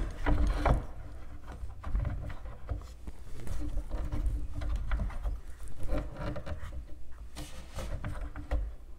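A golf-cart wheel being worked onto a metal axle shaft through a plastic milk crate: irregular knocks, clicks and scraping of plastic against metal and plastic.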